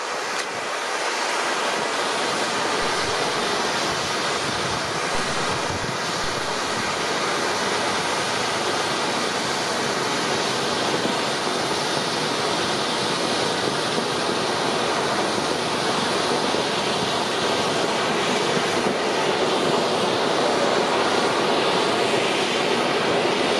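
Several ground firework fountains burning at once, a steady hissing rush of spraying sparks that grows a little louder as more fountains join.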